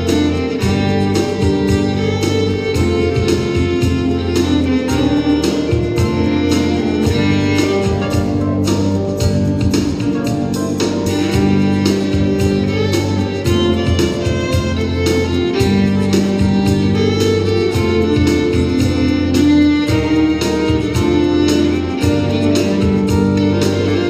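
Live Celtic and Native American fusion band music with fiddle over sustained chords and a steady drum beat; the beat drops out briefly about nine seconds in.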